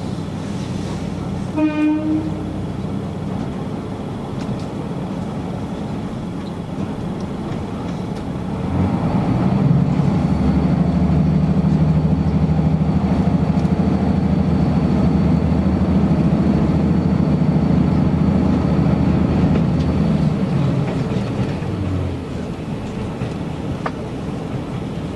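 Diesel railcar heard from inside the carriage: the underfloor engine hums steadily, with a short horn toot about two seconds in. About eight seconds in the engine note swells as it is put under power, holds for some twelve seconds, then eases back near the end.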